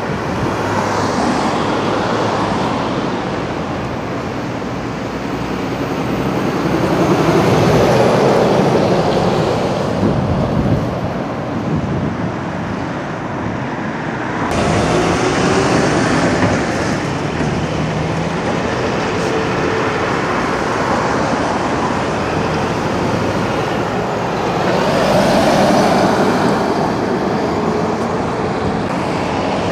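Road traffic passing close by: cars and lorries going by one after another, each swelling and fading over a steady traffic rumble. The sound changes abruptly about halfway through.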